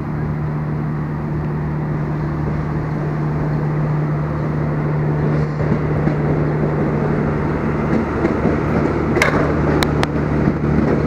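A train running through the station, a steady low mechanical hum with one fixed tone, with a few sharp clicks near the end.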